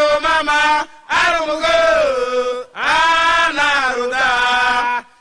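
Voices chanting a song in long held phrases without drums, with two short breaks for breath, about a second in and near three seconds in.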